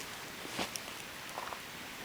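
Campfire burning with a steady hiss and a few irregular pops and snaps from the wood.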